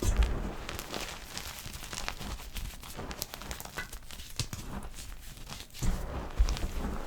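Soft gym chalk being crushed, with a run of soft crackles and crumbling clicks. There are heavier, deeper presses at the start and again near the end.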